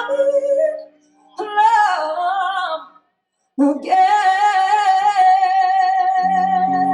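A woman sings live, country-rock style, in short phrases with brief breaks. About halfway through she moves into one long held note with vibrato, and low guitar notes come in under it near the end.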